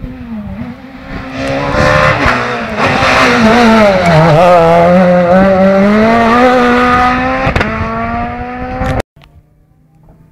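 Rally car engine at high revs passing close. Its pitch dips about four seconds in, then climbs again as it drives out of a corner. The sound cuts off suddenly near the end.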